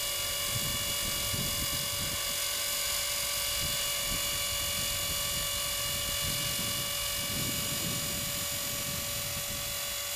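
Electric 450-size RC helicopter hovering steadily, its motor and rotor giving an even, high-pitched whine.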